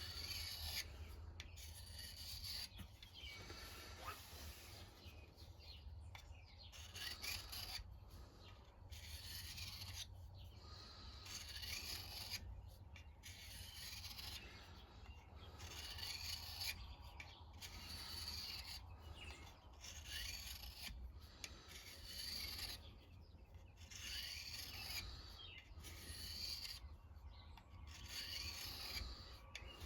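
Steel knife blade being sharpened by hand: repeated scraping strokes against an abrasive sharpener, about one stroke every second and a half, putting the final edge on the knife.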